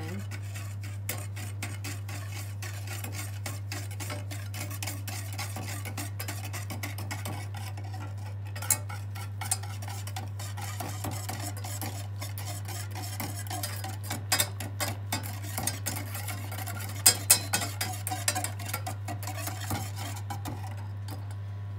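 Wire whisk beating a cold cocoa, sugar, milk and oil sauce in a stainless steel pot: continuous quick clicking and scraping of the wires against the metal. There are a few louder clinks of the whisk striking the pot's side, mostly in the second half.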